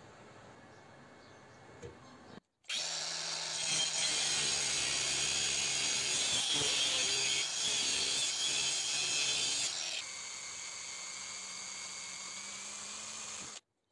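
Angle grinder's abrasive disc cutting into the end of a metal threaded rod, a loud steady high whine for about seven seconds after a short quiet start. Then an electric drill boring into the rod's end, quieter and steady, stopping abruptly near the end.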